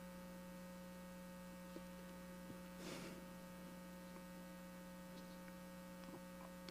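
Near silence filled by a steady electrical mains hum, with a brief soft noise about three seconds in.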